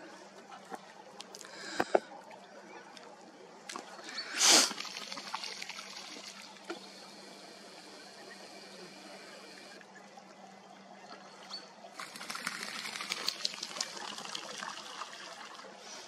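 Water trickling and lapping at the slushy, partly frozen edge of a lake, with a loud, short, noisy burst about four and a half seconds in and a stretch of crackling clicks over the last few seconds.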